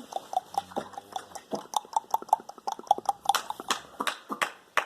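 A quick, irregular run of short clicks and pops, several a second, many with a brief high blip of pitch.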